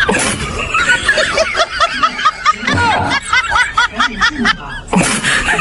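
Snickering laughter, a quick run of short high-pitched laughs, over background music.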